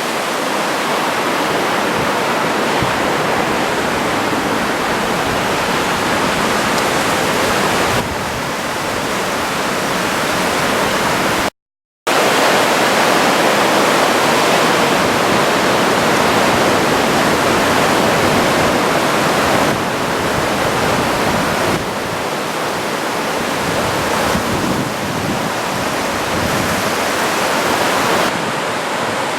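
Surf on a sandy beach after a typhoon: a steady, loud wash of breaking waves. The sound cuts out completely for about half a second roughly a third of the way through.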